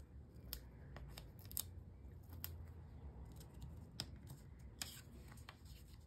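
Faint handling of paper and cardstock: small stamped squares being picked up and pressed down onto a card base, giving a handful of light clicks and taps, scattered and irregular.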